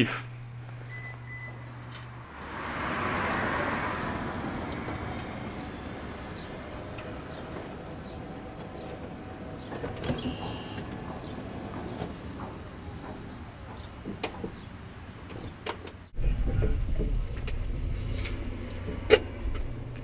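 Powered wheelchair ramp and sliding side door of a BraunAbility Toyota Sienna conversion running: a steady motor whirr with scattered clicks as the ramp folds up into the doorway and the door closes. About four seconds before the end it gives way suddenly to a steady low rumble inside the van's cabin.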